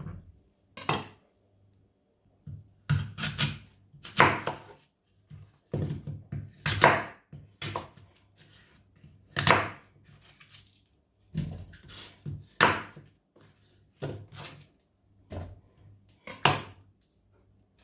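Kitchen knife cutting a cucumber into pieces on a cutting board: separate chopping knocks, irregular, about one a second, with short pauses between runs of cuts.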